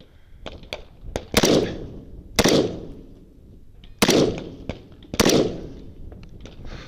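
Four shots from a scoped AR-15-style rifle, spaced about one to two seconds apart, each followed by a short echo, with a few lighter clicks in between.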